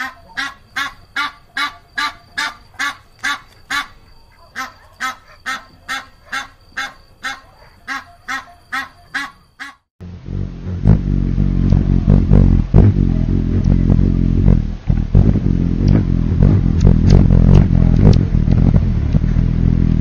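Geese honking in a rapid, even series of calls, about two or three a second. About halfway through, this cuts to a loud, steady low hum scattered with sharp chip notes: a hummingbird's wing hum and chips.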